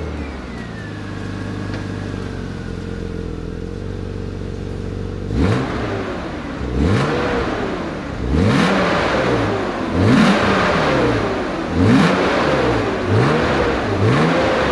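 BMW E36 M3's straight-six engine running through its stock factory exhaust, which the owner finds very quiet. It idles steadily for about five seconds, then is revved in a series of short blips, about seven of them, each rising and falling in pitch.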